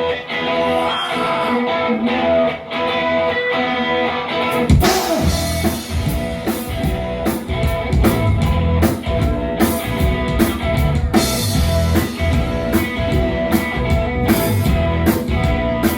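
Rock band music: a guitar part plays on its own, then drum kit and bass come in with a steady beat a little under five seconds in.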